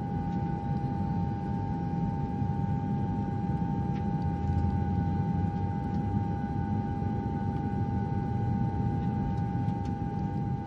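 Airplane cabin ambience: a steady low rumble of engine and airflow noise with a constant whine above it.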